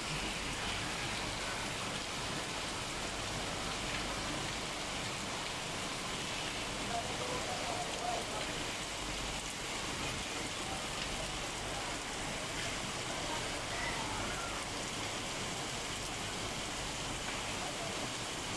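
Steady rain falling on rooftops: an even, unbroken hiss.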